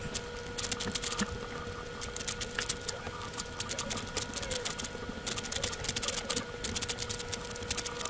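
Plastic layers of a YJ MoYu AoSu 4x4 speed cube clicking and clacking as they are turned at speed, in quick bursts of moves with brief pauses between.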